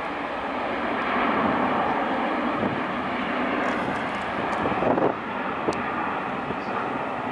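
Airbus A350-1000's twin Rolls-Royce Trent XWB-97 turbofans in a steep climb, a steady rushing jet noise.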